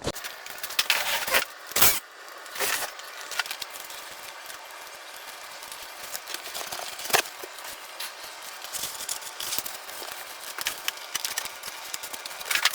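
Hands working on a foam RC model airplane during assembly: scattered clicks, taps and rustling of parts and packaging over a steady hiss, with a sharp click about 2 seconds in and another about 7 seconds in.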